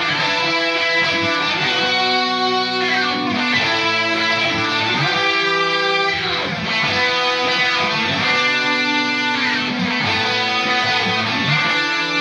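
Guitar-led instrumental music with sustained chords that change every second or two.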